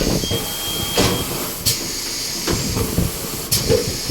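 Steady hiss of escaping compressed air during a tyre change, with a few short sharp clicks of tools.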